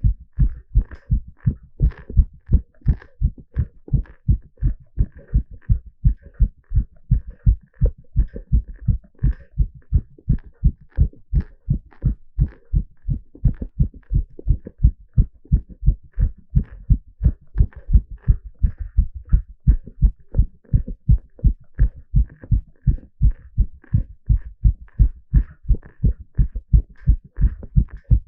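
A man's heartbeat heard through a stethoscope on the chest: a steady, unbroken rhythm of deep thumping lub-dub heart sounds, about two to three thumps a second.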